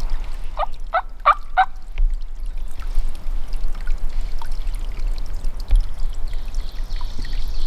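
Wild turkey calling: four short, quick notes in a row about half a second in, over a steady low rumble and hiss.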